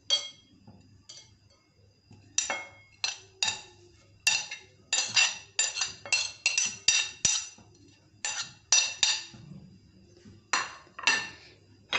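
Metal spoon clinking and scraping against a china plate and a glass mixing bowl as chopped ingredients are scraped in: a run of sharp clinks with a short ring, some in quick succession, with pauses between.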